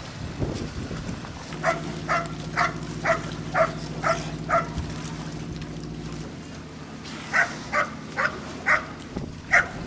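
A dog barking in quick runs at about two barks a second: seven barks, a pause of a few seconds, then five more. A motor hums steadily underneath through the first half.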